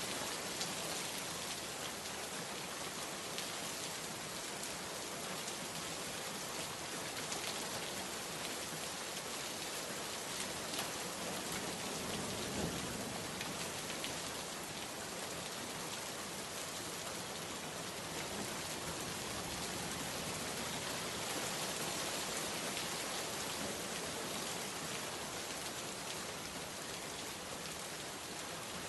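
Heavy rain falling steadily on a surface, a dense even hiss of drops, with a brief low swell about halfway through.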